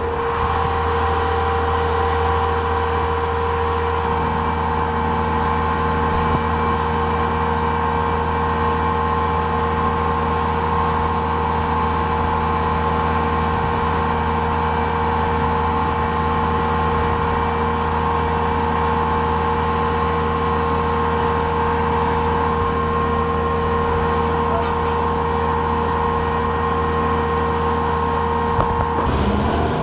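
An engine idling steadily: a constant low hum with steady higher tones over it, changing slightly near the end.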